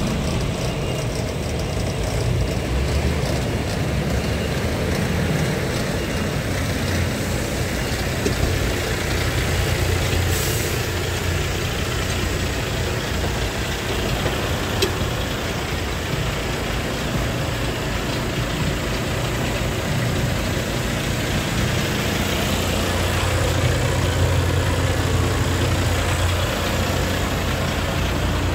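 Heavy diesel truck engine idling steadily, with a short hiss about ten seconds in and a single sharp click near the middle.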